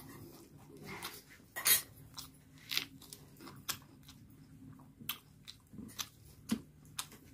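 A person chewing a mouthful of rice and chicken curry eaten by hand, close to the microphone: wet, irregular mouth clicks and smacks, a few louder than the rest.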